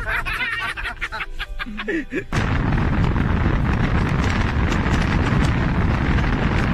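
Voices and music, then about two seconds in a sudden switch to loud, steady rushing noise: wind and road noise on the microphone of a car travelling at highway speed.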